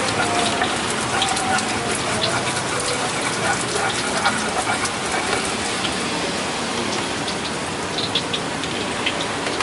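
Stone pestle grinding wet peanut-and-petis sauce round a large stone mortar: a steady gritty scraping with scattered small clicks.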